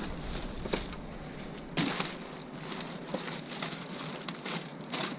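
Plastic bags and packaging rustling and crinkling as items are handled, with scattered clicks and one louder knock about two seconds in.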